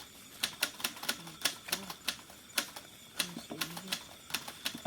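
A series of sharp, irregular clicks, about three or four a second, over a faint steady high-pitched tone.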